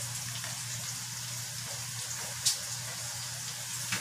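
Snails in sweet-soy chilli sauce sizzling steadily in a wok on a gas burner, over a steady low hum. Two sharp crackles stand out, one about two and a half seconds in and one near the end.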